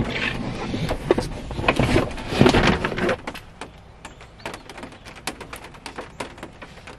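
Rubber floor mats being pulled out of a Jeep and handled right beside the microphone: rustling, scraping and several sharp knocks for about three seconds, then it falls much quieter to faint scattered clicks as the mat is carried away.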